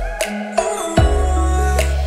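Background music with sustained bass and melody notes and a steady beat.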